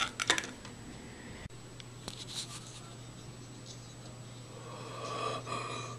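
A few quick clicks and rustles of handling in the first half second, then quiet room tone with a steady low hum. A faint pitched sound comes in near the end.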